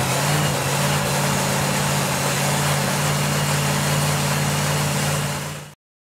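Supercharged engine of a front-engined slingshot dragster idling steadily, then fading out near the end.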